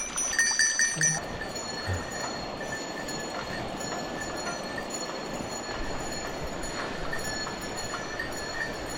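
Mountain stream water rushing steadily, with thin high ringing tones over it that are brightest, with a few clicks, in the first second.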